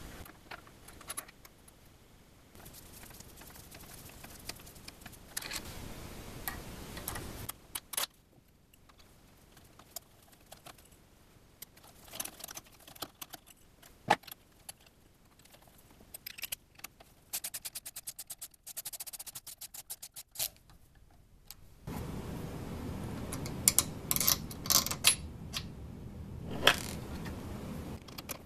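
Small metal clicks and clinks of screws, bracket and a hex key as a stepper motor mount is assembled and screws are turned by hand, with a quick run of even ticks a little past the middle. A steady low background noise sits under the first few and last several seconds.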